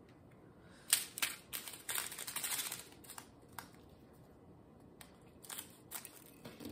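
Large scissors snipping and cutting open a plastic bag, with the crinkling of the plastic, mostly in the first half; a few lighter clicks and rustles follow.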